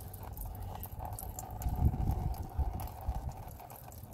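Used engine oil, thinned by engine flush, trickling in thin streams from the oil pan into a drain pan, with a spell of wind buffeting the microphone about two seconds in.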